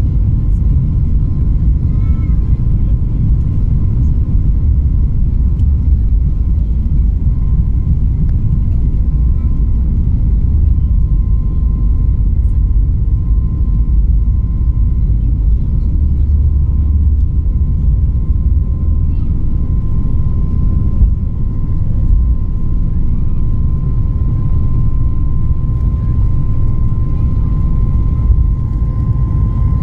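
Cabin noise of a Boeing 737 MAX 8 on its takeoff roll, heard from inside the cabin: a loud, steady low rumble from the engines at takeoff thrust and the wheels on the runway, with a thin steady whine above it that grows stronger near the end as the aircraft rotates.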